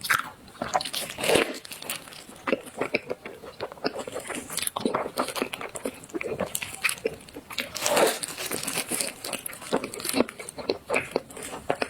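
Close-up eating sounds of a dessert being bitten and chewed: a dense run of short, sharp crunching clicks.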